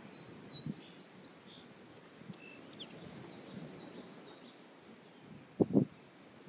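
Small birds chirping, a quick run of short high chirps in the first three seconds, over low rumbling outdoor noise. Near the end come two quick low thumps, the loudest sound.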